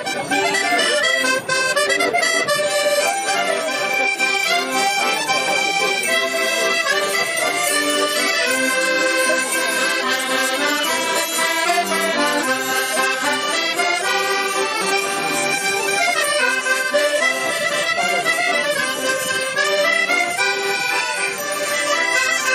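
Several button accordions playing a traditional folk tune together.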